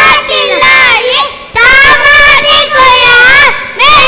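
A group of young boys singing together, held wavering notes in phrases with a short break about a second and a half in.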